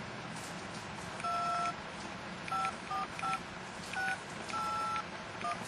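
Cell phone keypad tones as a number is dialled: seven short beeps at differing pitches, two of them longer, over a steady hiss.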